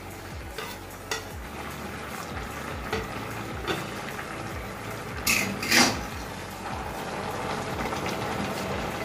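Fish curry simmering in a wok on a gas stove, with a knife scraping chopped coriander off a plate and a spatula stirring the pot. Small clicks throughout and two loud metal clinks about five and a half seconds in.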